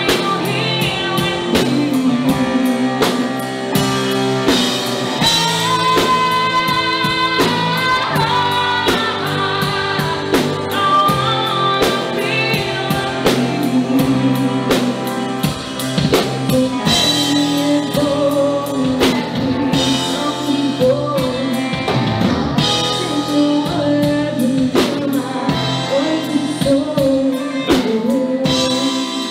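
A woman singing a ballad live with a band: stage piano, guitar and a drum kit keeping a steady beat.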